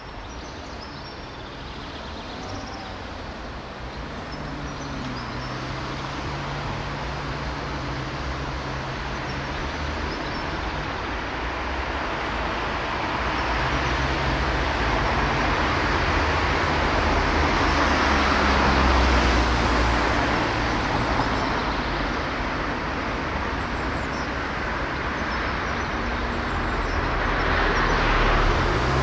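Road traffic going by: a steady rush of tyre and engine noise with a low hum, swelling as vehicles pass, loudest a little past halfway and again near the end.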